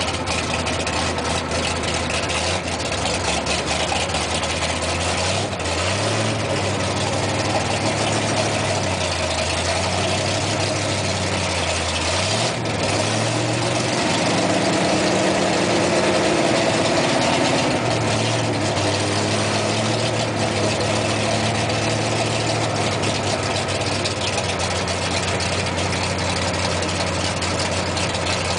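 A 4x4's engine running at low revs, heard from inside the cab as it crawls along a rutted dirt track. Its pitch rises and falls a little with the throttle and is a bit louder in the middle, over a steady rumble of cab and tyre noise with a few knocks.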